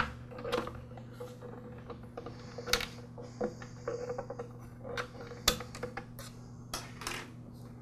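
Light clicks and scrapes of a bent-wire hook and fuel line against the plastic fuel tank of a string trimmer as the in-tank fuel filter is fished out through the filler neck, with a few sharper clicks.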